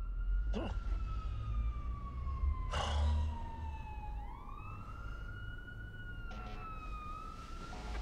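A siren wailing slowly: its pitch falls over about four seconds, then rises again and levels off. Under it runs a low rumble, with a few short bursts of noise.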